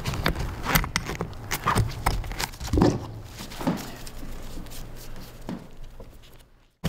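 A welded steel leg bar being worked into a square steel bracket: irregular metal-on-metal clicks, knocks and scrapes, thinning out and dropping away just before the end.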